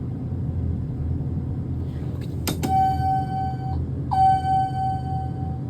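Elevator arrival chime sounding two electronic tones of the same pitch, each held for a second or more, starting just after a click about halfway through, over a steady low hum.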